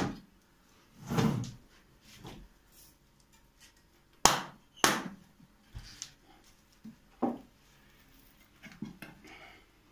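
A small glass jar with a plastic screw lid being twisted open and handled, with scattered clicks and knocks of the lid and jars on a table; the loudest are two sharp clicks about four and five seconds in.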